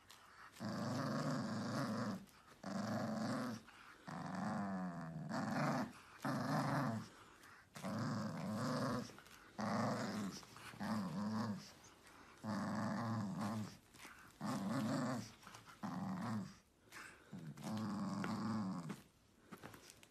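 Pug puppy growling in play during a tug-of-war with a plush toy: a long series of short growls, each under a second, with brief pauses between them.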